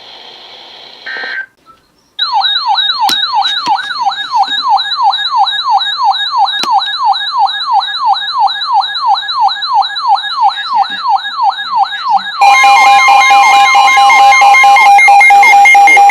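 Weather radio alert for a new tornado warning: a loud electronic siren tone warbling up and down about three times a second, which about twelve seconds in gives way to a louder steady attention tone.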